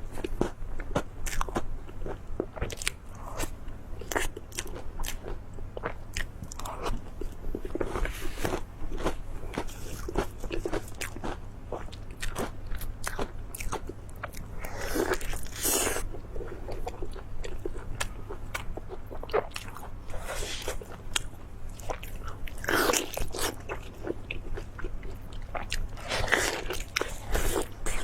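Close-miked eating: a person biting and chewing food, with a steady run of short crunches and clicks and several louder crunching bites.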